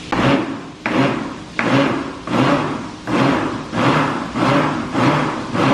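Countertop blender pulsed in short bursts, about eight in a row, each spinning up sharply and dying away, to mix gelatin with cream in a full jar without it overflowing.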